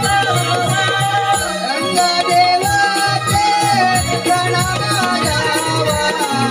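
Konkani Naman folk music: a steady drum beat with jingling percussion under a high, held melody line.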